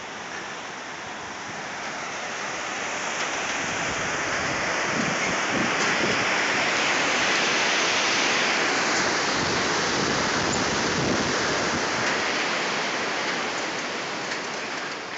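Fast mountain stream rushing over rocks in white water below a footbridge, a steady roar that swells to its loudest in the middle and fades again toward the end.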